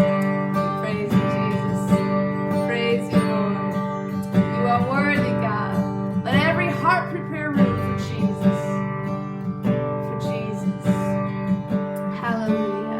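Instrumental music with acoustic guitar over steady held notes, with a wavering melody line in the middle.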